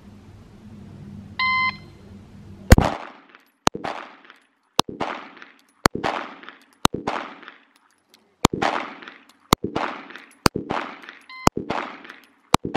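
A shot timer beeps once, then a Glock 19 Gen 5 9mm pistol fires ten shots at about one a second, each followed by a short ringing echo. A second short timer beep sounds just before the last shot.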